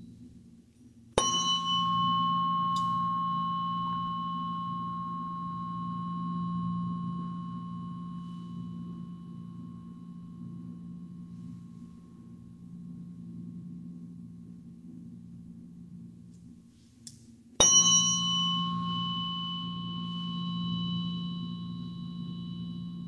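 A solfeggio-set tuning fork struck twice, the second time near the end. Each strike is a sharp, clearly audible knock followed by a long ringing tone that slowly fades, its bright upper ring dying away sooner than the low hum.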